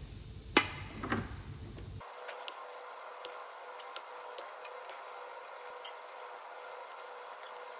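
Metal-on-metal clinks and clicks from a wrench and small parts being handled on a diesel engine's cylinder head during injector fitting. There is one sharp clank about half a second in and a second one about a second in, then faint scattered light ticks for the rest.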